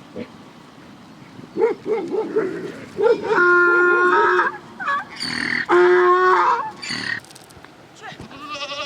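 Animal calls: a quick run of short calls, then two long, steady drawn-out calls and a brief one near the end.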